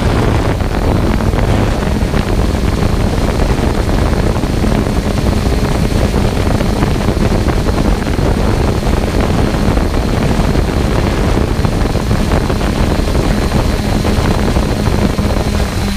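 Quadcopter drone's propellers and motors whirring steadily, with a constant hum and rushing wind noise on the microphone.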